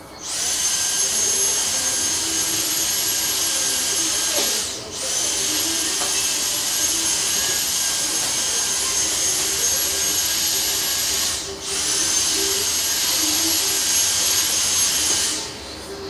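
High-speed electric blower motor, of the vacuum-cleaner kind, running with a loud airy hiss and a steady high whine. It cuts out for a moment twice and stops just before the end.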